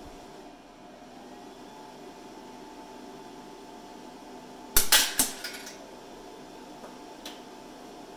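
Quick Anneal induction case annealer humming steadily through a heating cycle on a .223 Rem brass case, then a loud metallic clatter of several quick hits about five seconds in as the annealed brass case drops into the stainless steel catch tray.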